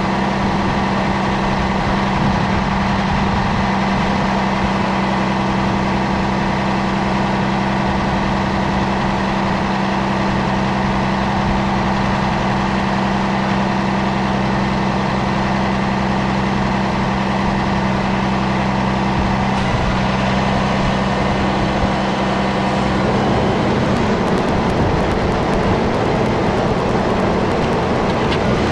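A heavy vehicle engine idling steadily. Its tone changes slightly about two-thirds of the way through and becomes rougher over the last few seconds.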